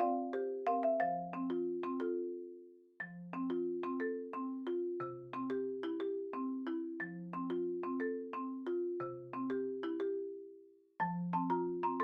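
Background music: a light, quick tune of struck mallet notes, like a marimba, that dies away and starts again twice.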